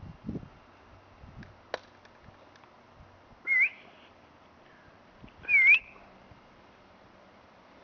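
A person whistling two short notes about two seconds apart, each dipping and then rising in pitch.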